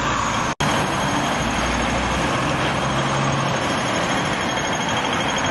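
Busy road traffic with a bus running close by. From about two and a half seconds in, a pedestrian crossing signal ticks rapidly and evenly on the green man.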